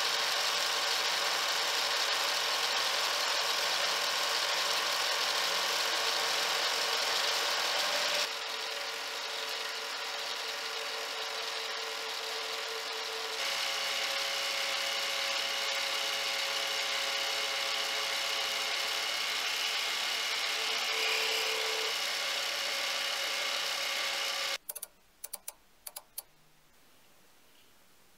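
Mini lathe running and turning a metal shaft with an insert cutting tool: a steady motor and drive whine with the cutting noise on top, dropping in level about eight seconds in and changing tone at about thirteen seconds. It stops about 25 seconds in, followed by a few short clicks.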